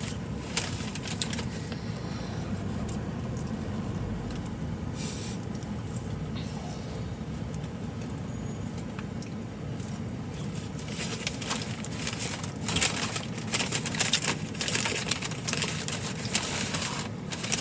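Steady road and engine noise inside a moving car's cabin. From about two-thirds of the way in, a run of clicks and light rattles from things being handled is added.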